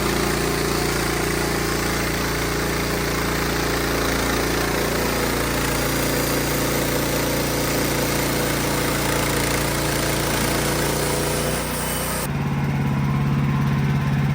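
Wood-Mizer LX55 bandsaw sawmill running and cutting through a poplar log, engine hum under a steady high sawing hiss. About twelve seconds in, the hiss stops abruptly and the engine keeps running on its own.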